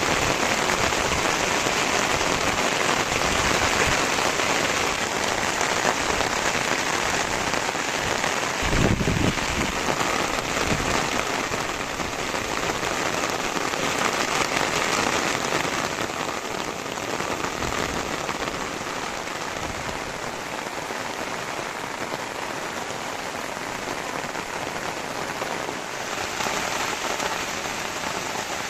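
Heavy rain pouring steadily onto the ground and surfaces, a dense even hiss that eases a little about halfway through. A brief low rumble comes about nine seconds in.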